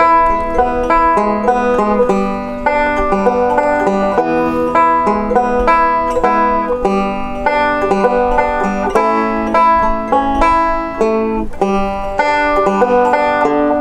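Banjo music: a quick run of plucked notes played without singing.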